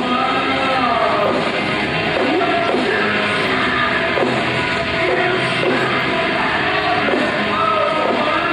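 Alternative metal band playing live, with a male vocalist singing over distorted guitars, bass and drums, echoing in a large hall. Low-quality amateur recording.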